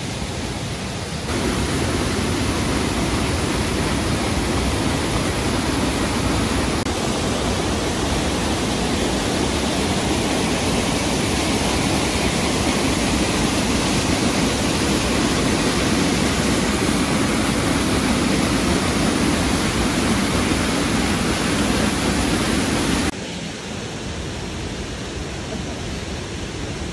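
Steady rushing of Brandywine Falls, a 60-foot waterfall pouring over a rock ledge. It steps louder about a second in and drops back to a lower level near the end.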